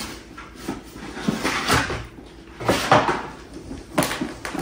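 Rustling and handling of gift packing: a plastic bag and cardboard boxes shifted about on a table, in several short rustles, with a sharp knock near the end.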